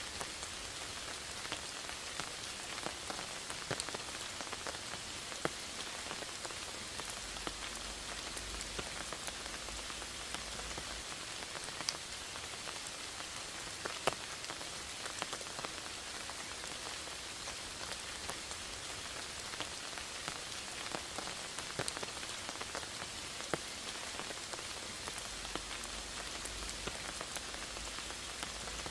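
Steady rain falling: an even hiss dotted with many separate drop ticks, a few of them sharper and louder.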